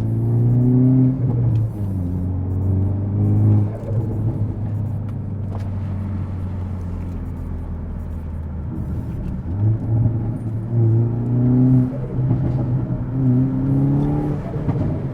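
Hyundai Veloster N's turbocharged 2.0-litre four-cylinder, fitted with an AEM cold air intake, pulling hard under acceleration. The pitch climbs in several pulls, each followed by a sudden drop, with steadier running in the middle.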